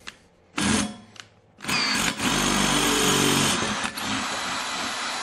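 Electric drill boring through the steel tube of a Lambretta TV175 series 2 fork with a lubricated bit. A brief burst, then about four seconds of steady drilling, the motor's pitch dropping for a while as it loads up.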